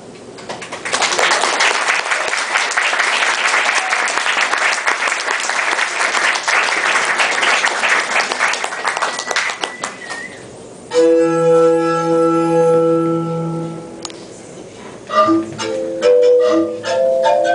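Audience applauding for about ten seconds. Then soft instrumental music comes in: a held chord, followed by a slow melody of single notes.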